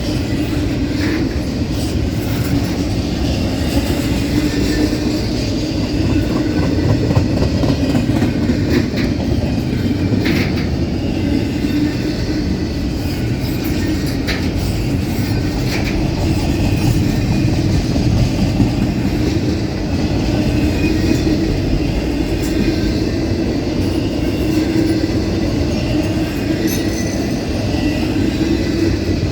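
Long CSX intermodal freight train rolling past, a steady rumble of steel wheels on rail with scattered sharp clicks.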